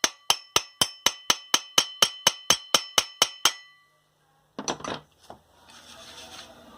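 Hammer tapping a new 6201 ball bearing into a ceiling fan's motor cover: quick light strikes, about four a second, each with a metallic ring. The tapping stops about three and a half seconds in, followed by a brief clatter.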